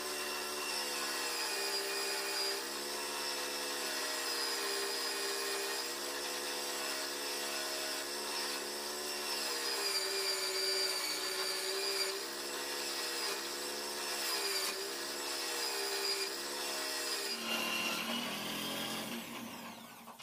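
Electric drill driving a homemade wood lathe, its motor whining steadily with small dips in pitch now and then as sandpaper is pressed against the spinning wooden spindle. The sanding rasp hisses over it. In the last couple of seconds the sound changes and the motor slows.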